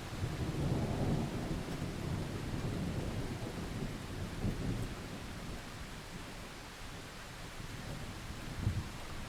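Thunder rumbling low over steady rain, swelling in the first few seconds and easing, with a short sharper crack of thunder near the end.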